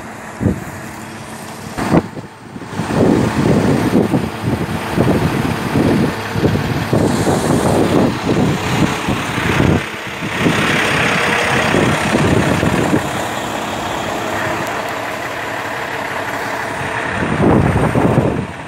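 Truck engine running steadily, with wind buffeting the microphone in irregular gusts. A louder hiss rises for a few seconds about ten seconds in.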